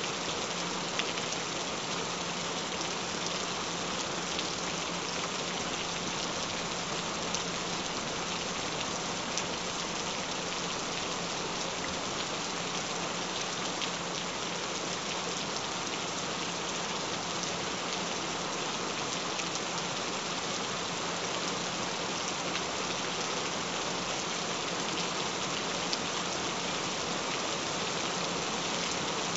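Steady rain falling: an even hiss with scattered ticks of individual drops.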